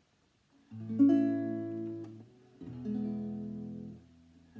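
Nylon-string classical guitar strummed: two chords, each left to ring for over a second.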